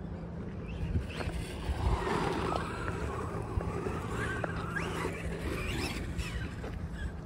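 Remo 9EMU electric RC short course truck driving, its motor and drivetrain whining up and down in pitch with the throttle, loudest from about two to six seconds in, over a steady low wind rumble.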